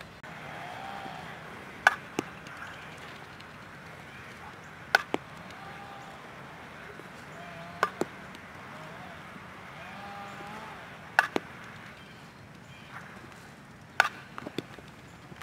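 Softball bat bunting pitched balls: five sharp knocks about every three seconds, each followed a fraction of a second later by a second, smaller click.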